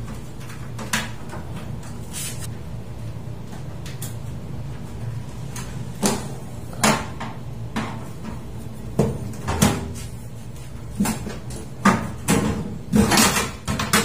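Stainless sheet-metal outer cover of a microwave oven being worked loose and slid off its chassis: scattered knocks and metal scrapes, coming thicker in the last few seconds, over a steady low hum.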